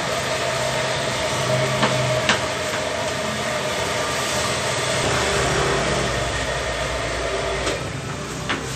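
A steady mechanical hum over a background of general noise, with a few light clicks; the low part of the hum grows stronger about halfway through.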